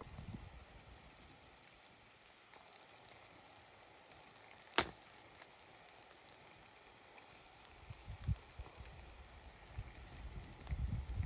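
A faint steady hiss with a single sharp crack about halfway through, then a few soft low thuds near the end.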